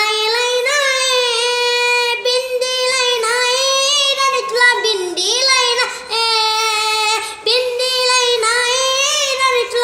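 A child singing solo in a high voice, holding long notes with a wavering vibrato and sliding ornaments between them.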